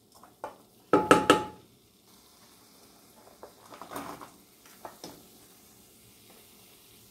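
A wooden spatula scraping diced onion and vegetables off a plate into a non-stick pan: a loud clatter of knocks with a short ringing note about a second in, then softer scrapes and taps.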